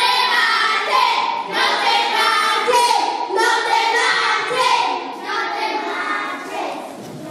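High voices singing a tune in held notes that change every half second or so, growing softer near the end.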